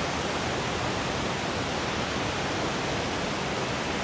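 Steady rushing of the Reichenbach Falls, a large mountain waterfall, heard at close range as a dense, even noise.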